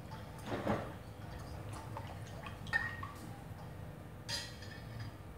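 A metal spoon stirring milk and sugar in a bowl to dissolve the sugar, with light ticks and clinks against the bowl. A few clinks stand out, one about three seconds in with a brief ring.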